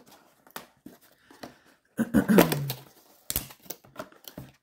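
Cardboard kit box being handled as a rolled canvas is slid out of it: faint scrapes and taps, a short pitched sound about two seconds in, and a sharp knock a little after three seconds.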